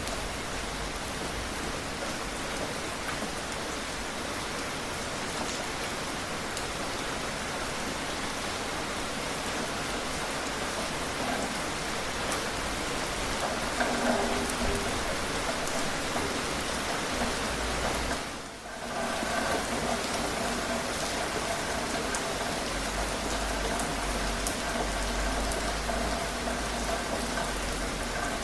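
Steady rain falling, an even hiss of many drops. About two-thirds of the way in it briefly dips and comes back, and a faint steady hum sits under the rain after that.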